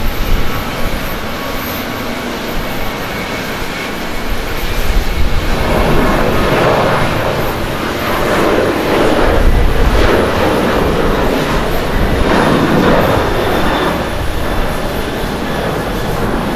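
Boeing 737-800's CFM56-7B turbofan engines at takeoff thrust, a loud rushing jet roar during the takeoff roll and liftoff. It grows louder and more uneven about five seconds in as the jet passes close by.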